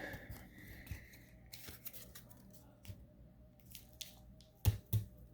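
Faint rustling and small clicks of trading cards and wrappers being handled, with two sharp knocks in quick succession near the end.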